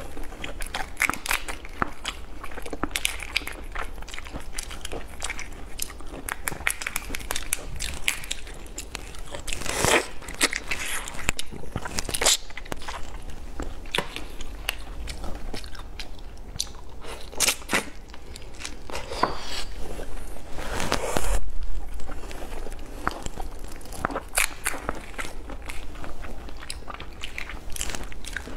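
Close-miked crackling and cracking of red prawn shells pulled apart by hand, mixed with biting and chewing as the prawn meat is eaten. It comes as many short crackles throughout, with louder bursts about ten seconds in and again about twenty-one seconds in.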